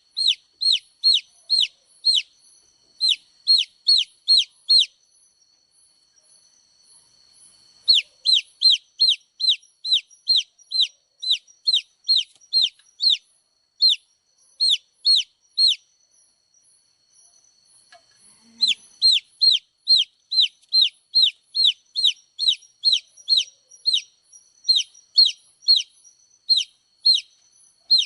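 Baby chick peeping: a steady series of short, high peeps that fall in pitch, about two a second. The runs are broken by two pauses of a few seconds.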